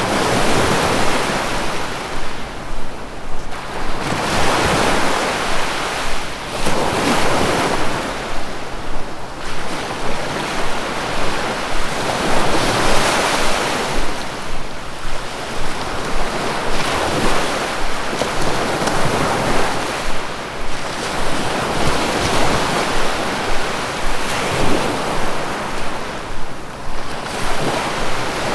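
Sea waves breaking on the shore: a continuous wash of surf that swells and eases every few seconds.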